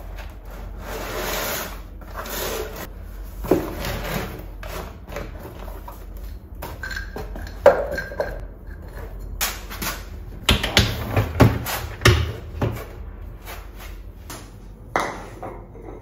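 Toiletry bottles, jars and containers being handled and set into a wood-grain storage box on a shelf: a string of light knocks, clicks and rubbing, with a quick run of knocks near the end.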